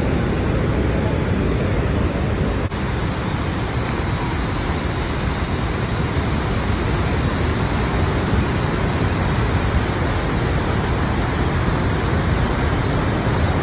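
Steady rushing noise of Niagara Falls, the water pouring into the churning basin below.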